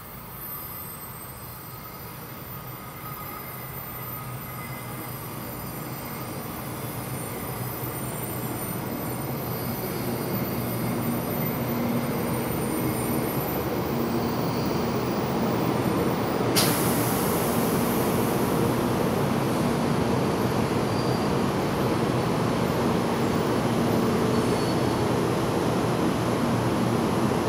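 Taiwan High Speed Rail 700T bullet train pulling into an underground station: the rush and rumble of its wheels and motors grows steadily louder as it approaches, then stays loud as the cars run past the platform, slowing to stop. A sudden high hiss joins the noise about two-thirds of the way in and carries on.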